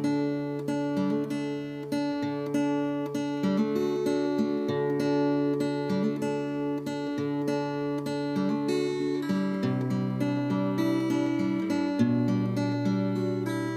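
Background music: strummed and picked acoustic guitar playing a steady chord progression.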